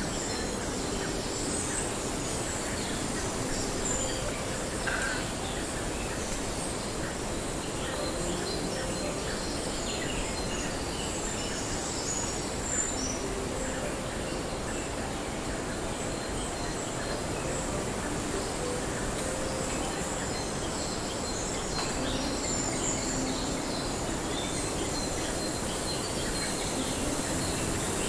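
Rainforest ambience: a steady hiss with many short bird chirps and calls scattered throughout.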